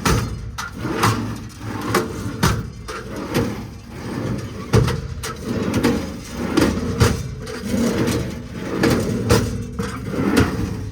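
American Eagle twist-lock drawer pack in a truck service body, its metal drawers being pulled open and pushed shut again and again, with repeated clunks and rattles.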